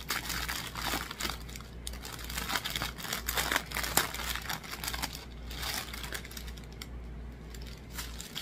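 Clear plastic packaging of a diamond painting kit crinkling and rustling in the hands as the small bags of drills are pulled out of it. The crackles come in irregular bursts and are loudest about four seconds in.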